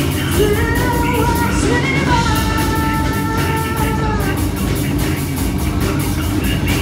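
Rock band playing live through a PA, with drums, bass and electric guitars. A held melody line that slides in pitch rides over the band through the first half, then drops back into the mix.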